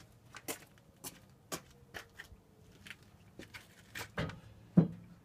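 A string of short, light knocks and clicks about two a second, with a louder knock just before the end.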